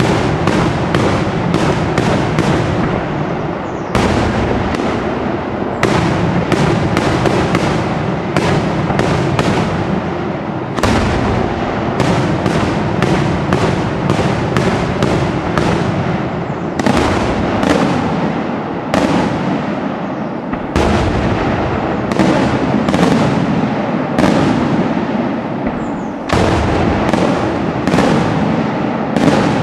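Daytime aerial fireworks bursting in a continuous barrage: sharp bangs two or three a second run together into a steady din, with a louder bang now and then.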